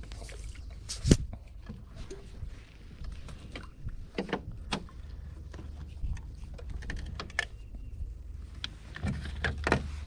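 Scattered clicks and knocks of fishing tackle being handled in a small boat, with one sharp knock about a second in, over a steady low rumble.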